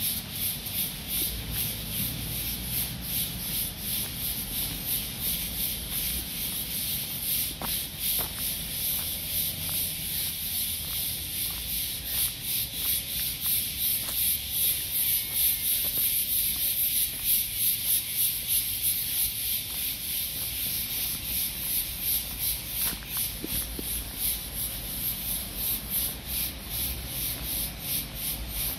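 Footsteps of a person walking at about two steps a second, with a steady scraping rub close to the phone's microphone.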